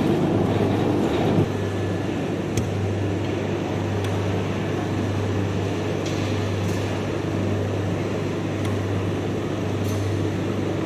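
Steady low mechanical hum under an even background noise, a little louder in the first second and a half, with a few faint ticks.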